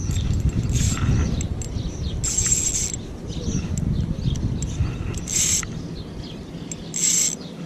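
Spinning reel's drag buzzing in three short runs as a hooked catfish pulls line off against the light drag, over a steady low rumble.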